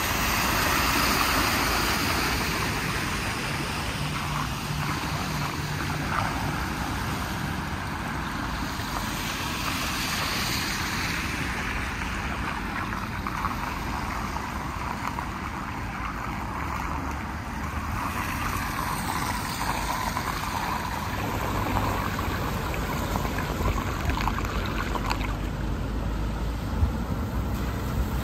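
Car tyres splashing through shallow floodwater, loudest about a second in, over a steady rush of water running down into a storm drain.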